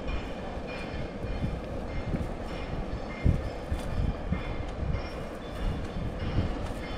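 Wind buffeting the microphone in irregular low gusts over a steady outdoor rumble, with faint short high chirps scattered through it.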